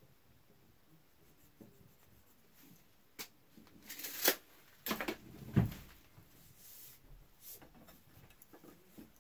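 A steel bar and a tape measure being handled at a workbench vise: scattered light clicks and knocks. The loudest come a little after four seconds and around five and a half seconds in, the second a duller knock.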